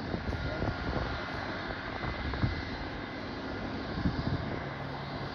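Aircraft engine noise running steadily, with a low steady hum joining in near the end.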